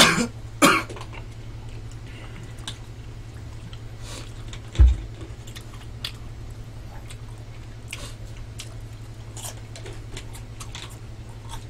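Close-miked eating sounds: chewing and slurping of black-bean noodles, with scattered small clicks and a single dull thump about five seconds in, over a low steady hum.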